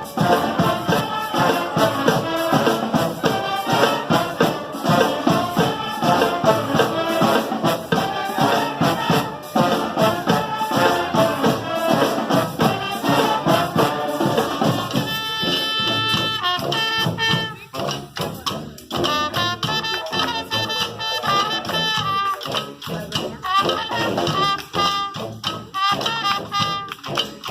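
Brass street band with percussion playing a Latin tune: trumpets, trombones and saxophones over tambourine. About halfway, the dense full-band playing gives way to held horn chords, then to short punchy horn phrases with brief gaps between them.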